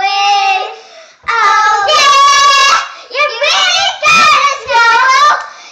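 Two young children singing loudly in several sung phrases with short breaks, holding one long note for about a second and a half in the middle.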